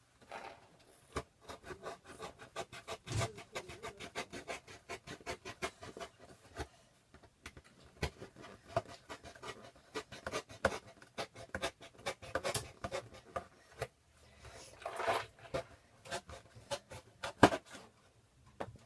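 Rapid scratching and rubbing strokes on cardboard and paper, several a second, with a few louder scrapes about two-thirds of the way through.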